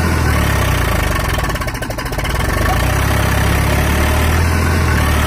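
Eicher 480 tractor's diesel engine running steadily while the tractor is stuck in deep mud, with a brief dip in level about two seconds in.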